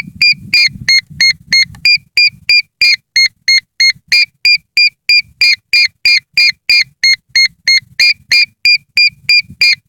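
Electronic beeper sounding a rapid, steady string of short high-pitched beeps, about three and a half a second, from a rocket GPS tracking setup between its voice readouts.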